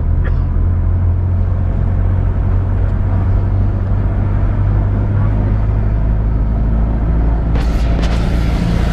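A Philippine jeepney's diesel engine running steadily with a deep, even drone, along with road noise, heard from the front of the cab while the jeepney drives. A brief burst of noise comes near the end.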